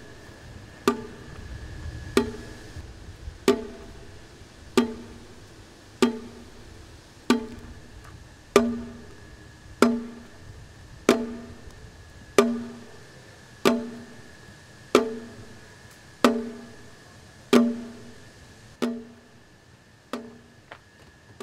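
Slow, even soundtrack beat of single hollow percussion strikes, about one every second and a quarter. Each strike rings briefly at a low pitch, with a faint steady high tone underneath.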